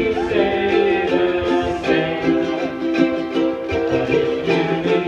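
Several ukuleles strummed together in a chord-based tune, with voices singing along.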